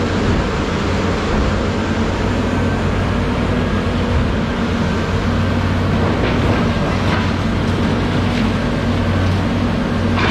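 An engine running steadily with a constant low hum, with a few light knocks in the second half.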